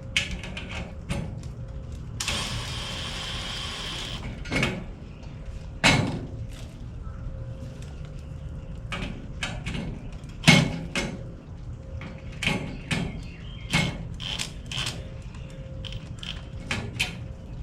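Small metal hardware being handled and fitted: a series of separate clicks and knocks, with a scraping hiss lasting about two seconds early on.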